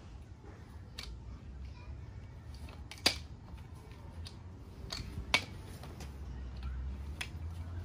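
Aluminium telescopic ladder (Acrohome 2.6 m) being collapsed rung by rung, its sections sliding down and latching with several sharp, irregular metal clacks. The two loudest come about three and five and a half seconds in.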